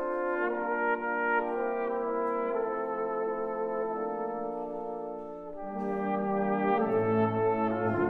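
Solo cornet playing a slow, held melody with vibrato over a brass band's sustained chords. The sound thins out briefly past the middle, then swells as the low brass come back in near the end.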